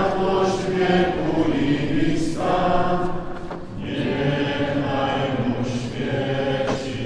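A congregation of many voices reciting Catholic prayers aloud in Polish, together in a chant-like rhythm.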